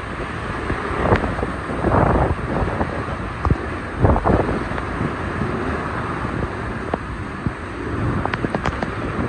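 Hurricane wind gusting with torrential rain. The gusts buffet the microphone in uneven surges under a steady rushing roar, with a few sharp ticks near the end.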